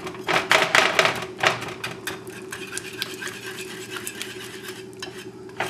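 Wire whisk beating thick cooked navy beans in a stainless steel pot, mashing them to a creamy texture. It clatters against the pot in quick strokes, about four or five a second, for the first second and a half. After that it goes on more softly as scraping and stirring with light ticks, and there is one sharper click near the end.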